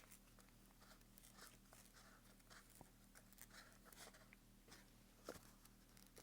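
Near silence with faint, scattered light clicks of a hex key tightening a bolt into a holster mounting plate.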